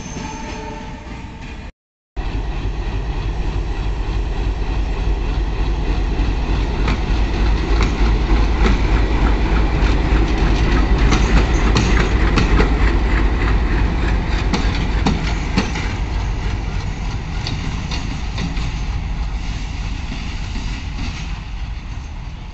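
A WDM3D diesel-electric locomotive's ALCO 251 engine running with a deep, steady rumble as the locomotive moves past, with wheels clicking over the rails. It grows louder toward the middle and eases off near the end. Before it, after a short cut to silence, passenger carriages roll by.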